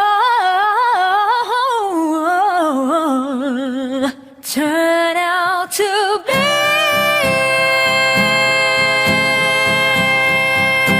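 Acoustic pop ballad: a solo singer's wavering melismatic vocal run, breaking briefly about four seconds in. From about six seconds a long, steady held chord takes over, with a soft regular beat underneath.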